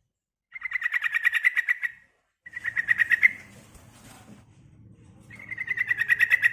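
Female sooty-headed bulbul (trucukan) calling: three bursts of rapid, evenly repeated chattering notes, each growing louder, the female's call to a male.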